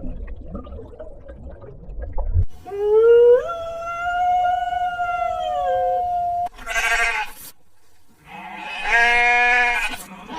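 An animal's calls: one long, drawn-out call lasting about four seconds, then a short call and another pitched call near the end, over a low rumble at the start.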